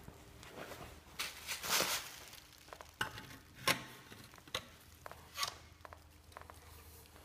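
Handling noises as a stainless steel exhaust silencer is slid onto its link pipe and lined up with the rear hanger: irregular rustling with a few sharp metal clicks and knocks, the sharpest about three and a half seconds in.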